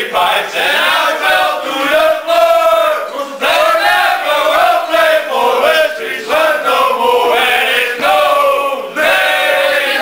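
A group of men singing a chant together, loud, in phrases with short breaks between them.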